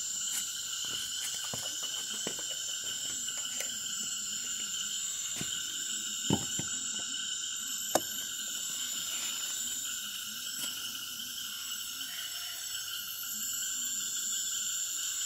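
Night chorus of insects, a steady shrill trilling at several pitches at once. Two sharp knocks come through it, about six and eight seconds in.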